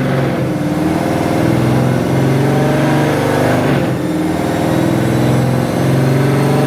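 Cammed Chevrolet Camaro V8 running with a choppy, uneven note, its pitch shifting slightly about halfway through.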